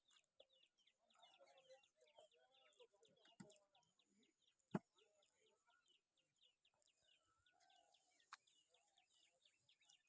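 Faint outdoor background: a fast, steady run of short high chirps, with faint low sounds under it and one sharp click about five seconds in.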